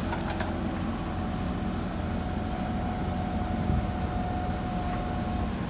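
JCB backhoe loader's diesel engine running with a steady low rumble, a thin steady whine over it that stops near the end.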